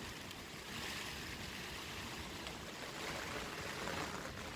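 Rain falling steadily, an even hiss of water.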